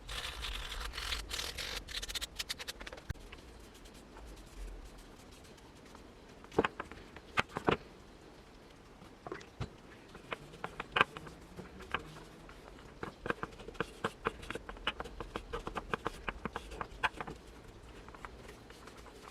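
Scraping and scratching for the first few seconds, then scattered sharp clicks and a quick run of small ticks and taps, like metal parts being worked on and handled.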